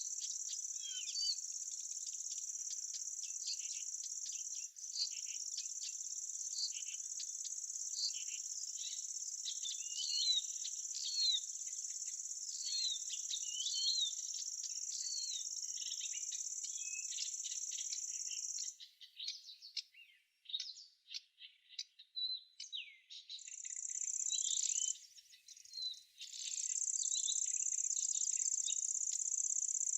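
An insect, cricket-like, trilling in one steady high-pitched buzz, which breaks off about two-thirds of the way through and starts up again in two stretches near the end. Birds chirp with many quick short calls underneath throughout.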